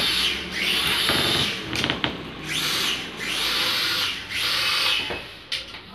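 Toy quadcopter's four small motors and propellers whirring in flight, the whine rising and falling in about four surges, then fading away near the end.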